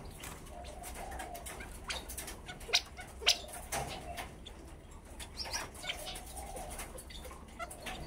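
Caged California quail calling softly in short low phrases while moving about on the wire floor, with scattered sharp taps; the two loudest taps come about half a second apart a little under three seconds in.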